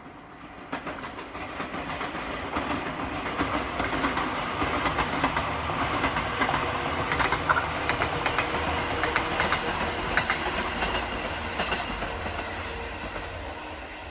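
Electric passenger train passing by: its running noise builds over the first few seconds, with wheels clicking rhythmically over rail joints, loudest around the middle, then fades as it moves away.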